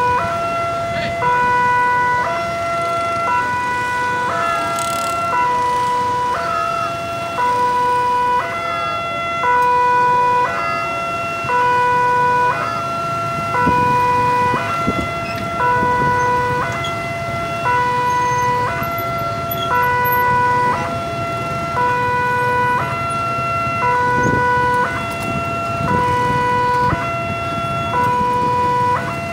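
A railroad crossing's electronic warning alarm sounds a two-tone ding-dong, the low and high notes taking turns about every second and a quarter. It is the warning that a train is approaching and the crossing is closed. Road traffic and motorcycles idle underneath.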